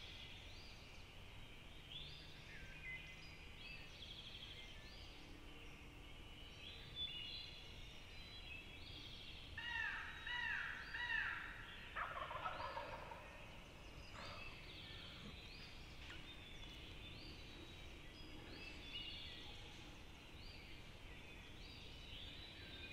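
Wild turkeys gobbling faintly in the distance from the roost, the loudest calls coming about ten to thirteen seconds in. Songbirds repeat high chirping notes throughout.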